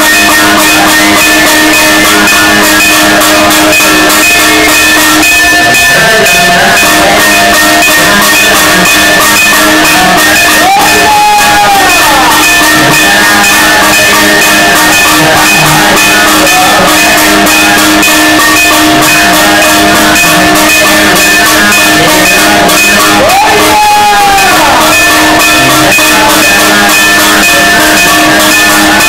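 Devotional instrumental music: fast, steady drumming over several sustained held tones, with a brief upward-then-downward pitch swoop about eleven seconds in and again near the end.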